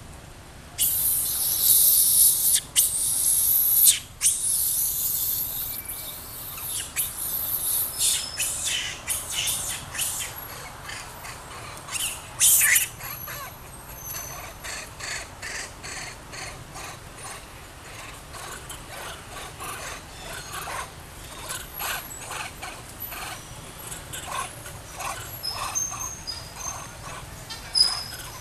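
Outdoor ambience with loud hissing rushes in the first few seconds and again briefly near the middle, then scattered clicks and rustles with short high chirps and squeaks.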